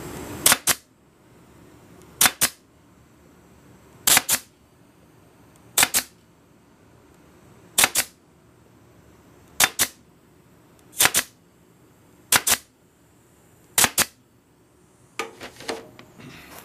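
Arrow PT23G 23-gauge pneumatic pin nailer firing nine times, about one shot every one and a half to two seconds, each a sharp double snap as a pin is driven into plywood. Near the end comes a softer clatter as the nailer is set down.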